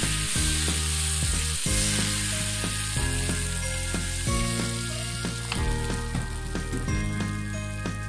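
Thin rice-flour batter sizzling as it is drizzled onto a hot non-stick pan from a squeeze bottle, the hiss fading over the first couple of seconds. Background music plays throughout.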